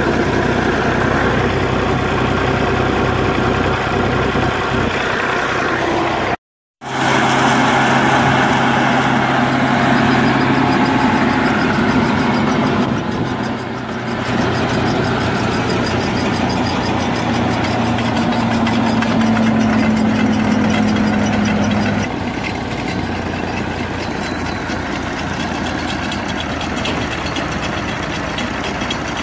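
Massey Ferguson 135 tractor engine running steadily while driving a belt-driven hammer mill grinding dried Boma Rhodes grass. A brief silent gap comes about six seconds in, and the sound drops in level about twenty-two seconds in.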